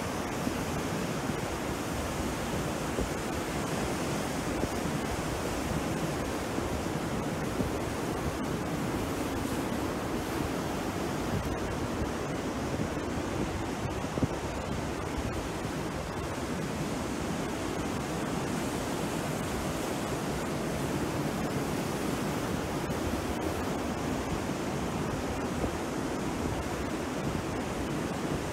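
Rough sea surf breaking and washing onto the shore: a steady, even rush of noise with no pauses.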